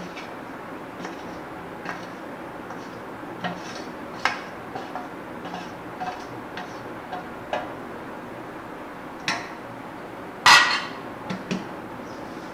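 A hand tapping a steel plate to shake flour off it into a glass bowl: a series of light metallic taps and clinks, with one louder clatter near the end.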